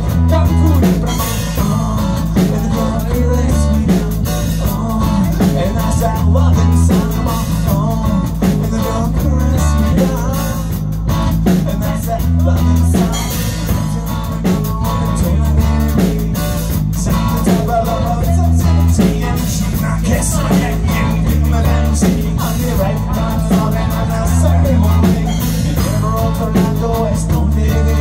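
Live rock band playing: electric guitar and drum kit, with some singing, over a low bass figure that repeats about every three seconds.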